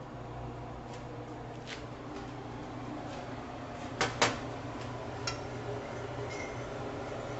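Kitchen clatter over a steady low hum: two sharp clacks in quick succession about four seconds in, like a drawer or door being pushed shut, then a lighter click a second later.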